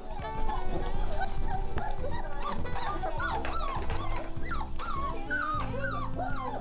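Several Weimaraner and Labrador puppies, about a month old, whining and yipping: many short, wavering high cries overlapping, growing busier partway through, over steady background music.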